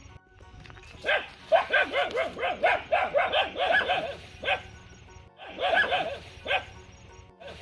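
A dog barking in quick runs of short barks, about four or five a second: a long run from about a second in to past four seconds, then a shorter run near six seconds.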